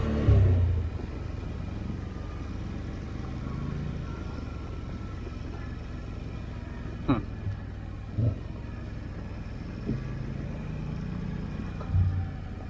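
Can-Am Outlander 850 ATV's V-twin engine dropping from a loud rev to a steady low rumble, with a loud thump right at the start. Several short sharp knocks come in the second half.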